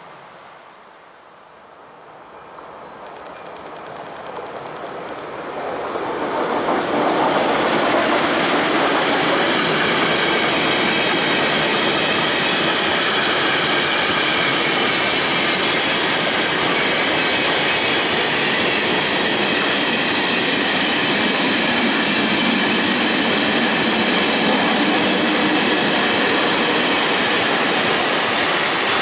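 A freight train hauled by an electric locomotive approaches and passes close by, a long string of hopper and tank wagons rolling over the rails. The noise of the wheels rises from about two seconds in, reaches full loudness by about seven seconds, and then holds steady as the wagons go by.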